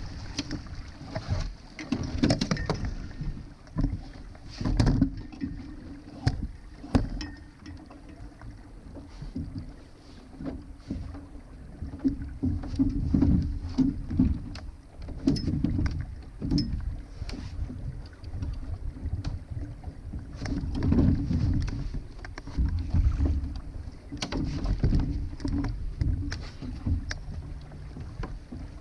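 Water slapping and gurgling against a Laser sailing dinghy's hull as it sails, in irregular surges, with wind buffeting the microphone and a few sharp knocks.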